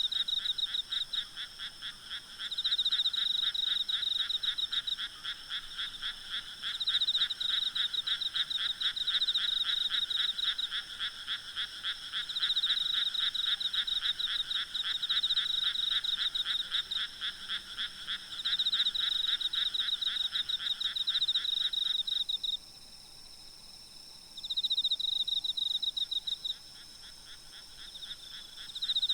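Night chorus of frogs calling in rapid pulsed trills, bouts of a few seconds overlapping one another, over a steady high trilling of insects. About three quarters of the way through the lower part of the chorus stops, leaving intermittent trills and the insect drone.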